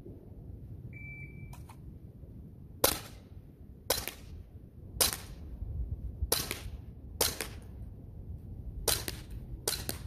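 Sig Sauer Air P320 X-Carry CO2 blowback 4.5 mm BB pistol firing about eight sharp shots, roughly one a second, some in quick pairs, after a short electronic beep about a second in. Wind rumbles on the microphone underneath.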